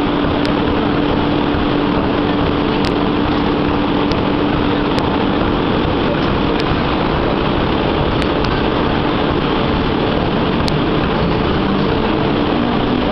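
Forge-shop machinery running: a loud, even din with a steady hum that stops about halfway through, and a few faint ticks.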